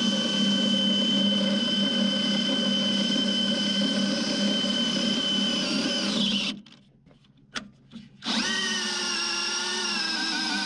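DeWalt XR cordless drill spinning the worm gear of a speed chain binder to tighten a load chain, running at a steady whine. It stops about two-thirds through, with a couple of clicks, then starts again, its pitch wavering and slowly dropping as the binder tightens.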